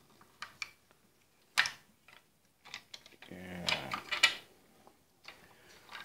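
Toy Cat dump trucks knocking and clicking against a glass tabletop as they are picked up and set down by hand: a few sharp knocks, the loudest about a second and a half in. About halfway through, a person's voice makes a short, drawn-out sound, and another knock follows it.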